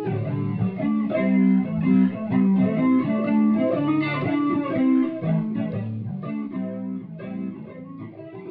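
Electric guitar music, picked notes over a steady low line, slowly fading toward the end.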